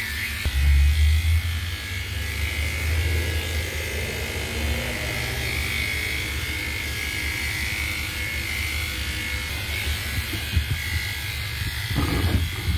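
Electric dog-grooming clippers running with a steady buzz as they shave through a dog's coat, louder for a moment about a second in.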